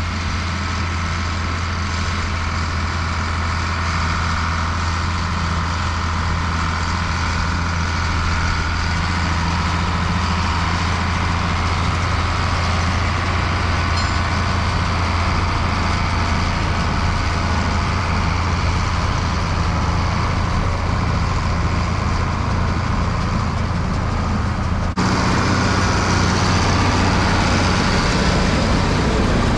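Tractor engine running steadily under load, with a strong low hum. About 25 seconds in the sound changes abruptly to a slightly different, louder engine note.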